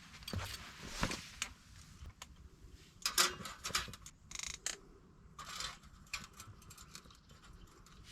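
Scattered light clicks, taps and rustles of things being handled, with a short rasping scrape about four and a half seconds in.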